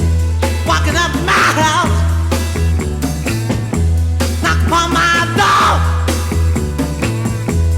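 1960s British beat-band recording: a rock band playing, with a bass riff that repeats about every two seconds under drums and guitar, and a wavering higher line twice.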